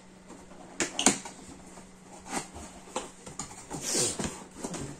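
Cardboard laptop box being opened by hand: a few sharp snaps and scrapes as the tape is peeled and the flaps are pulled open, with a longer rasp about four seconds in.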